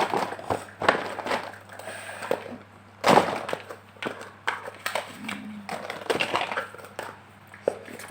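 Knocks, clicks and rustling of art-supply packaging being handled and put away, with one sharp knock about three seconds in.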